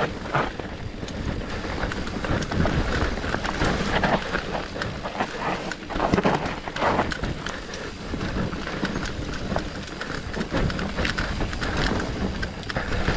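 Mountain bike riding down a dirt singletrack, picked up by a camera on the bike or rider: tyres rolling over dirt, leaves and stones, with a steady stream of irregular clicks and knocks from the chain and frame rattling over bumps.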